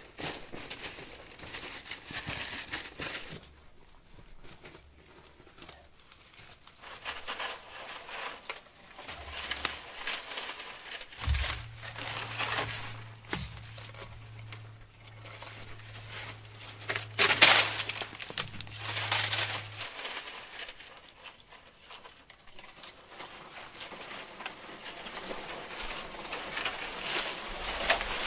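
Dry, dead palm fronds rustling and crackling as they are handled, in irregular bouts with a louder spell a little past halfway. A steady low hum runs for several seconds in the middle.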